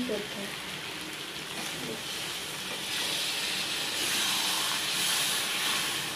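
Water poured from a jug into a hot iron kadai of fried masala and chicken, hissing and sizzling as it hits the hot oil. The hiss swells about three seconds in as the pour gets going.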